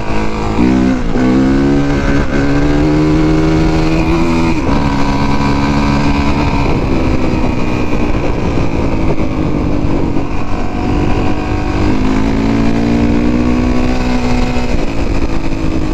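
2017 Honda CRF450R's single-cylinder four-stroke engine running under way, revving up about a second in and then holding steady notes, with its pitch stepping down and back up a few times as the throttle and gears change.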